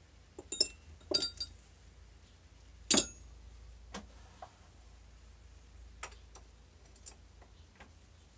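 Metal clinks and knocks from tools and parts being handled on a lathe's carriage and tool post: a quick cluster of sharp clinks in the first second and a half, the loudest single clink about three seconds in, then a few fainter taps.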